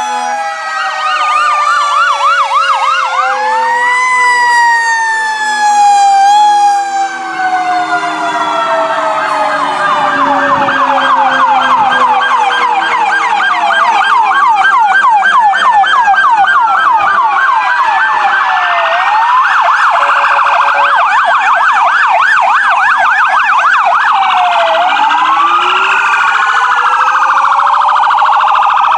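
Several emergency-vehicle sirens from passing fire trucks and ambulances sounding at once, wails and yelps overlapping. A long, slowly falling tone runs through the first several seconds, and a fast yelp comes about two-thirds of the way through.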